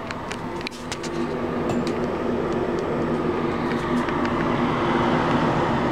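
Ceiling-mounted bathroom exhaust fan with a built-in light, running with a steady hum and whir. It grows louder about a second in, as it is heard from right up at the grille, with a few faint clicks.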